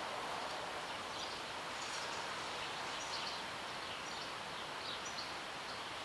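Steady background hiss with faint, brief high chirps scattered through it.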